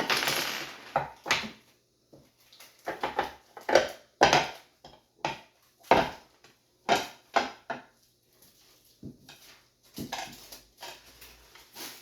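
Hard tic-tac-toe game pieces being handled and set down: a brief rattle at the start, then a string of separate sharp clacks and knocks at irregular intervals, about one a second.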